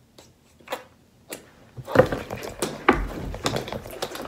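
Two short puffs of breath blown into a long modeling balloon. About two seconds in, a burst of excited yelps and shouts mixed with thuds and rustling as a man jumps about celebrating.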